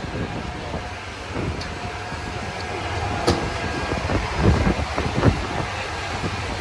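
City street traffic and vehicle engines running as a steady low rumble, with a sharp click about three seconds in and a few short low thumps a second or two later.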